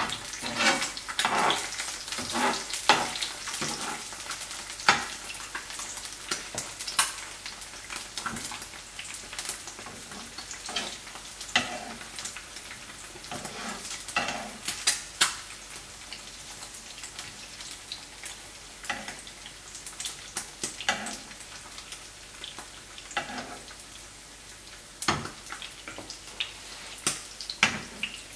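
Eggs frying in oil in a pan, a steady sizzle, with a metal spoon clinking and scraping against the pan many times as it works the eggs.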